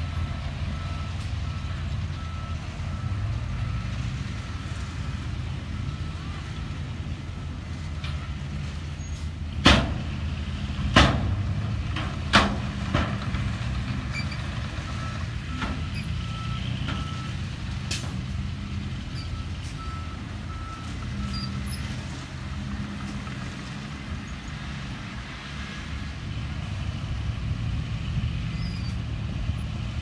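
Diesel engines of a Komatsu D39 crawler bulldozer and dump trucks running steadily, with a reversing alarm beeping on and off. Three loud bangs come in quick succession about ten seconds in.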